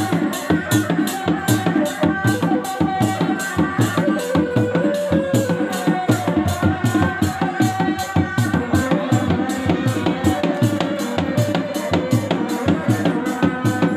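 Reak ensemble music: dog-dog frame drums beating a fast, even rhythm of about three to four strokes a second, with a wavering tarompet melody over it.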